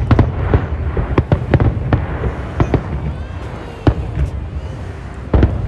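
Fireworks display: aerial shells bursting in rapid, irregular bangs over a continuous low rumble, with a loud bang near the end.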